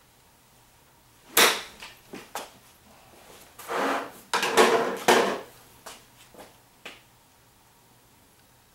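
Golf club striking a ball off a hitting mat into a practice net, a single sharp crack about one and a half seconds in, followed by a few lighter clicks. Then a run of scraping and clattering with a few last clicks as the club drags the next ball onto the mat.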